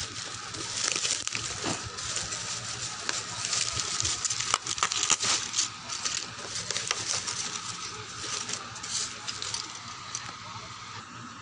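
Plastic mailer bag and bubble-wrap packaging crinkling and crackling as hands pull it open, with many small ticks and rustles.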